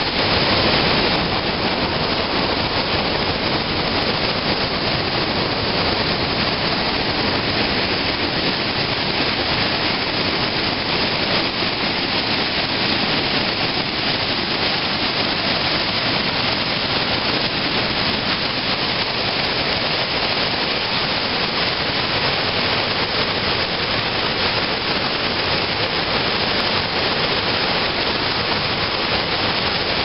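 Sooke River whitewater rapids rushing through a narrow rock gorge: a loud, steady wash of water noise that does not let up.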